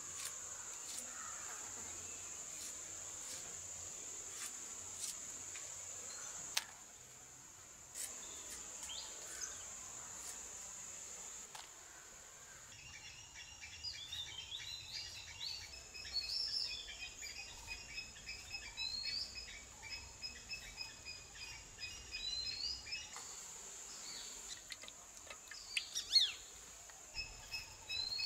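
Outdoor rural ambience: a steady high-pitched insect drone that drops out a little before halfway and returns near the end, with birds chirping in repeated short notes through the middle. A few sharp clicks are heard, the loudest a little over six seconds in and again near the end.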